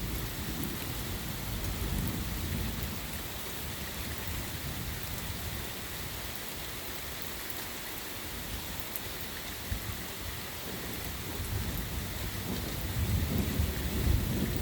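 Heavy rain pouring steadily, with low rumbles of thunder that swell again and grow louder near the end.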